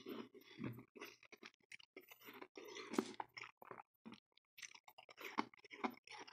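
Chewing a mouthful of powdery freezer frost: a run of irregular crunches, with the sharpest crunch about three seconds in.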